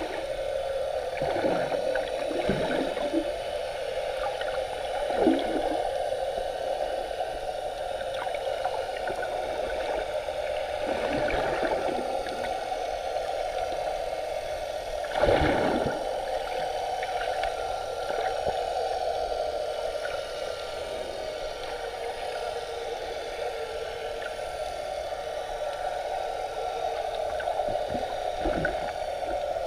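Sea water heard underwater by a submerged camera: a steady muffled hiss with now and then a short, falling gurgling swish of moving water, the loudest about halfway through.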